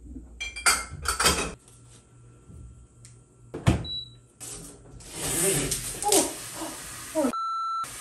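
Kitchen handling sounds at a countertop mini dishwasher: dishes and the appliance's door and parts knocked and clicked about, with one sharp click a little past the middle followed by a brief high electronic beep. Near the end there is a short stretch of clattering and rustling, then a steady tone for under a second.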